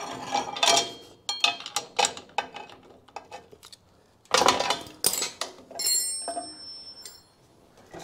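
Hand tools clicking and clinking against a steel trailer bracket as its mounting bolts are tightened, in irregular clicks and knocks. About six seconds in there is a short, ringing metallic clink.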